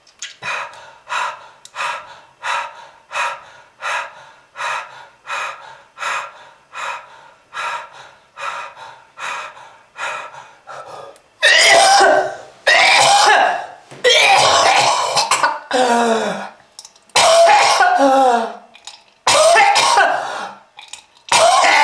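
A person coughing, the cough of a smoker with lung disease in an anti-smoking film. First comes a run of short, evenly spaced coughs, about one and a half a second. From about halfway come loud, long, hacking coughs with a strained voice that falls in pitch.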